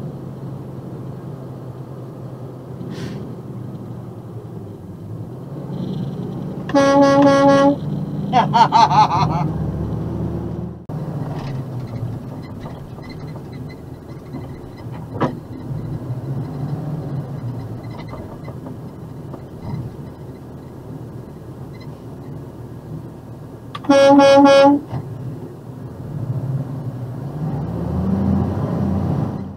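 Truck air horn blown in two short blasts, one about seven seconds in and one near twenty-four seconds, each under a second long, over the truck's steady running drone. A brief wavering high-pitched sound follows right after the first blast.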